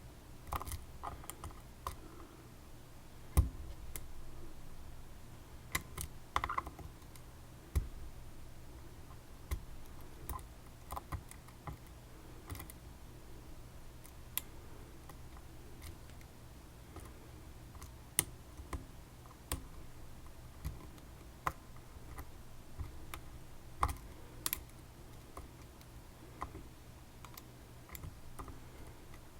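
Pick working inside a dimple lock: scattered small metallic clicks and taps at an uneven pace as the pick moves against the pins, with one louder click about three seconds in.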